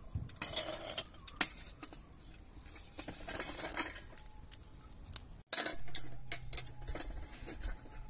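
Wood and charcoal fire crackling and popping, with metal clinks as a steel charcoal-starter chimney full of lit charcoal is tipped into a small secondary-combustion stove.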